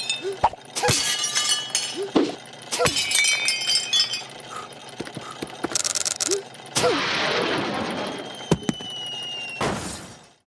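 Glass and crockery smashing and clinking: a quick run of sharp crashes with ringing glassy tones. A longer, noisier crash comes about seven seconds in, and a last burst just before the sound cuts off.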